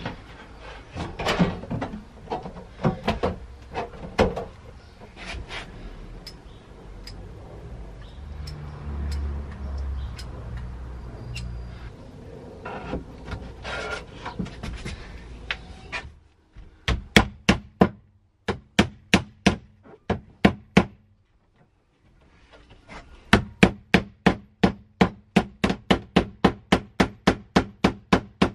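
Small hammer tapping along the edge of a thin stainless steel sheet on a wooden cabinet, knocking the panel down at the joint. About a dozen spaced blows, a short pause, then a quick run of about four taps a second. Before the hammering, clicks and rustling as the sheet is handled and pressed into place.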